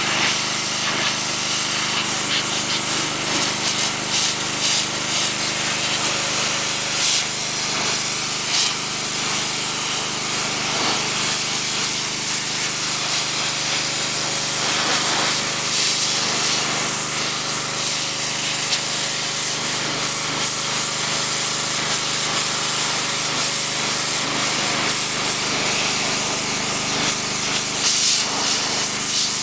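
Pressure washer jet spraying against a gate post and ball: a steady hiss that rises and dips a little as the spray moves, over the steady hum of the washer's pump.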